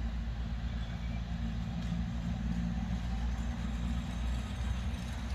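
Motor of a child-driven ride-on train running steadily, a low-pitched drone.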